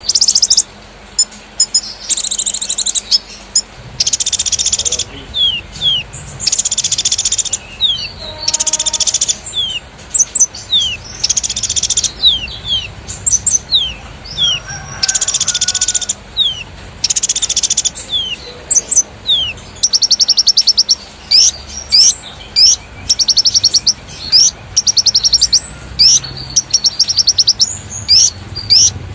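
Konin songbird singing in full 'gacor', rapid-fire 'nembak' style: loud, fast buzzy trills of about half a second to a second, alternating over and over with short, quick downward-sliding whistled notes.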